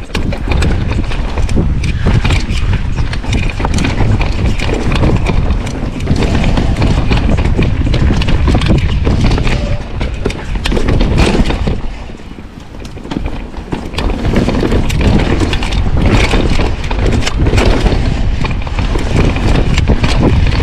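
Mountain bike riding down a rough trail: wind rumbling on the microphone, with the tyres and frame clattering over roots and rocks in many sharp knocks. The rush eases off briefly about twelve seconds in.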